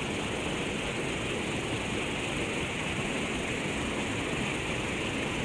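Steady rush of river water pouring over a low dam spillway.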